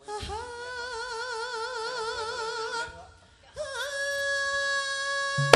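A Javanese sinden sings unaccompanied into a microphone. She holds one long note with wide vibrato, breaks off briefly about three seconds in, then holds a second long note almost steady.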